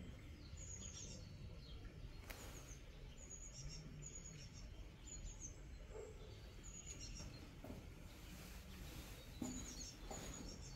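Small bird chirping repeatedly in short high chirps over faint outdoor background noise, with a brief soft knock near the end.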